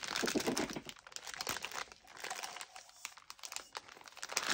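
Clear plastic packaging of a diamond painting kit's rolled drill bags crinkling as it is handled and turned over, with dense crackles that ease off briefly about three seconds in.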